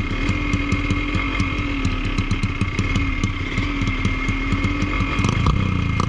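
Yamaha DT125 two-stroke dirt bike engine with an open carburettor idling with a quick, even beat, over the steady rush of a shallow river. It briefly gets louder about five seconds in.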